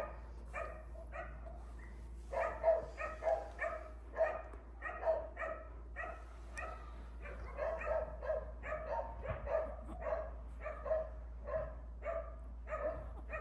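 A dog barking over and over in short, even barks, about two a second, with a brief lull in the first two seconds.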